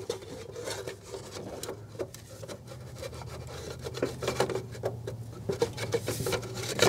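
Light scraping, rubbing and small clicks of metal parts as a steering shaft joint is worked onto the input shaft of a power steering gearbox, with a sharper knock near the end.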